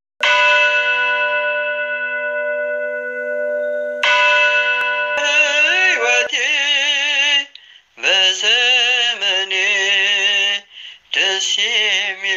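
Intro music: a long held ringing chord that sounds again about four seconds in, then a singing voice with a strong wavering vibrato that carries on in phrases with short breaks.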